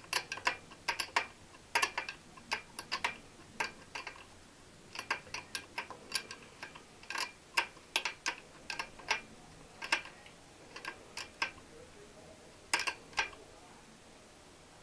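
Ratchet spanner clicking in short, irregular runs as a nut is tightened onto a stud with stripped threads, trying to get it to grip on what thread is left.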